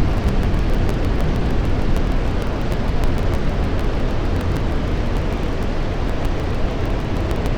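Steady rushing noise of a Tecnam light aircraft in flight: wind over the wing-mounted camera with the engine and propeller running underneath.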